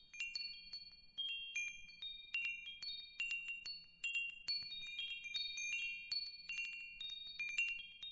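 Tinkling wind chimes: high, bell-like notes struck at irregular moments, a few each second, each ringing on and overlapping the next, played quietly.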